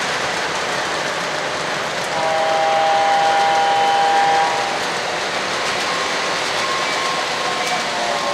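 An O-gauge Burlington GP30 diesel locomotive's horn sounds one multi-note chord for about two seconds, starting about two seconds in. It sits over the steady rushing noise of the train running on the track, and fainter horn-like tones come back near the end.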